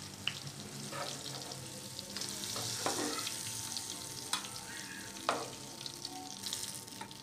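Masala-stuffed green chillies sizzling in hot oil in a metal pan. About five light clicks come from the metal tongs touching the pan as the chillies are lifted out.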